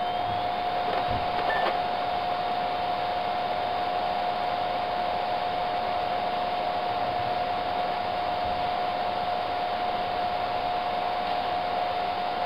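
A laptop booting, giving a steady whir with a constant mid-pitched whine; a faint rising whine levels off right at the start.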